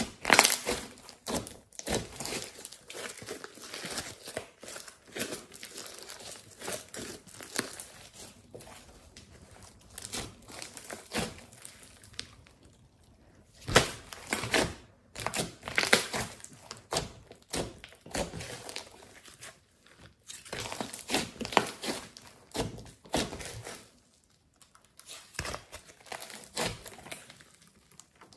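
Thick clay-mixed slime being kneaded, pressed and stretched by hand, giving dense sticky crackling and clicking. It comes in louder spells with quieter lulls between, as the slime is squeezed and pulled apart.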